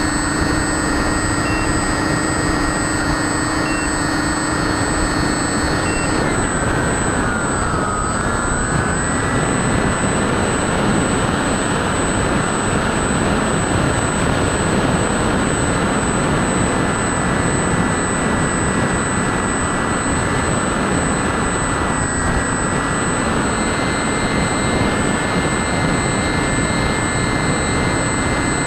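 Multiplex Twinstar RC model plane in flight, heard from on board: a steady rush of wind with the high whine of its twin electric motors. The whine drops in pitch and climbs back again about seven to nine seconds in.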